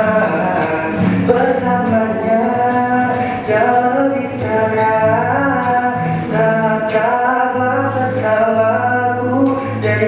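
Acoustic guitar strummed steadily while a man sings into a microphone, a solo unplugged song.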